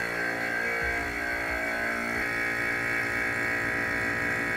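Electric vacuum pump running steadily as it evacuates the vacuum chamber, a constant hum with a higher whine.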